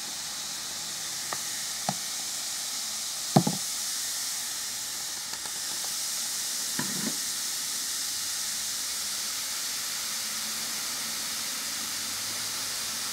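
Bath bombs fizzing in a basin of water, a steady soft hiss, with a few light knocks, the sharpest about three and a half seconds in.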